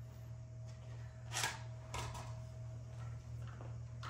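Quiet room with a steady low hum and a couple of light knocks, about one and a half and two seconds in; no blaster is firing.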